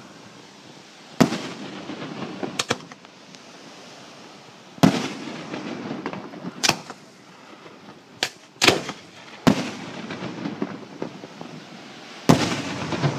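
Fireworks display: about nine sharp bangs from aerial shells bursting close by, at uneven intervals, each with a brief rumbling echo after it. The last bang, near the end, has a longer crackling tail.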